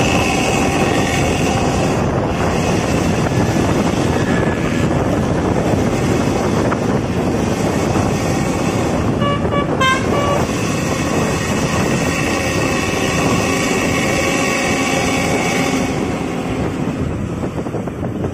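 Steady loud road noise of a bus running at speed, with a short burst of horn toots about ten seconds in.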